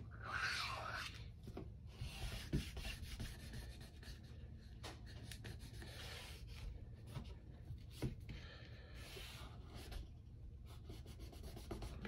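Folded cloth rubbing along the edge of an iPad's aluminium frame, faint wiping strokes with a few light taps, cleaning off old adhesive residue to prepare the mating surface for new adhesive. The strokes are strongest in the first second.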